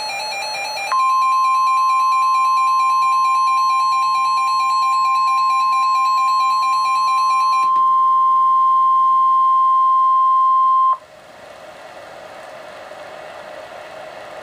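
NOAA Weather Radio emergency alert: a rapid warbling digital data burst ends about a second in. Then the steady, single-pitch 1050 Hz weather-radio warning alarm tone sounds for about ten seconds, signalling an incoming warning, and cuts off sharply, leaving faint radio hiss.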